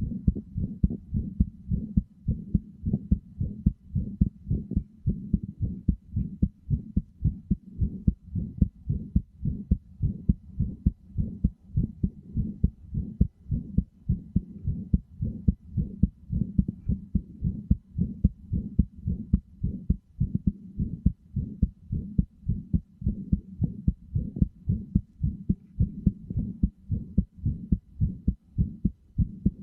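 Heartbeat: a steady, even rhythm of low, soft thumps that keeps going without a break.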